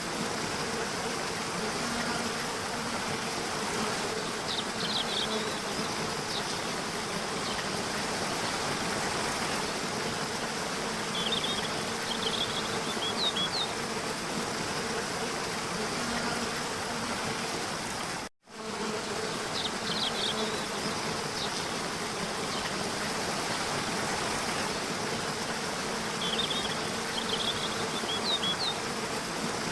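Steady noise of a waterfall with a low, even buzz under it, and small clusters of short high bird chirps every several seconds. The sound cuts out for an instant about eighteen seconds in.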